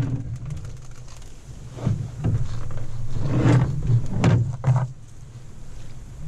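Canoe setting off from shore: paddle strokes and knocks against the hull, a handful of short splashes and thumps between about two and five seconds in, over a steady low rumble.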